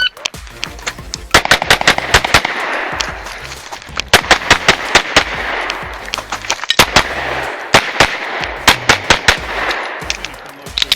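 A shot timer's short beep, then a string of pistol shots from a 2011 chambered in 9mm major, fired in fast pairs and quick bursts with brief pauses between groups as the shooter moves through a competition stage. Background music with a low beat runs underneath.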